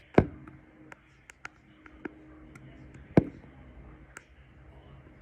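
Scattered sharp clicks and taps, with two louder knocks, one just after the start and one about three seconds in, over a faint steady hum.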